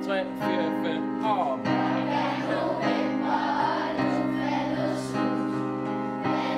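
A group of children singing together with instrumental accompaniment, held chords under the voices.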